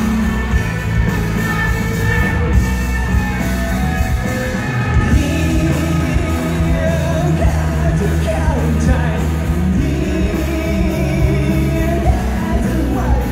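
Live rock band playing loud through the hall's PA, with drums, bass and guitars under a male singer, heard from within the crowd in a large hall.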